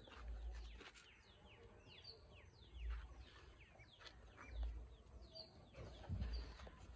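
Faint bird calls: many short chirps, each sliding quickly downward in pitch, repeated throughout, over intermittent low rumbling.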